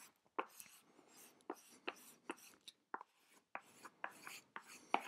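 A squeegee card scraping across a plastic screen-protector film on an iPad in a quick, irregular series of short strokes, about a dozen, pushing trapped air bubbles out to the edge.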